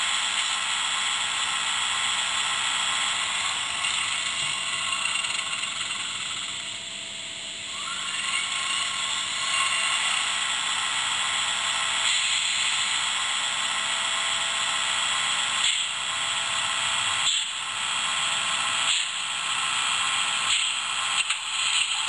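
Roco H0 model steam locomotive's sound decoder playing steam-engine sounds through the model's small speaker: a steady hiss with mechanical clatter and a few sharp knocks in the second half, as the model moves slowly along the track.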